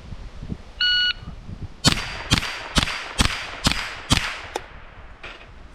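Shot timer's electronic start beep, then a Ruger 10/22 .22 rimfire rifle firing six quick shots about half a second apart, followed by a few fainter cracks near the end.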